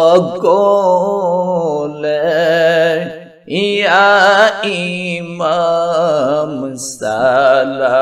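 Voices singing a Bengali milad chant in long, drawn-out phrases with wavering notes, reaching the start of the refrain 'Ya Imam, salam alaika'. The singing breaks off briefly about three and a half seconds in.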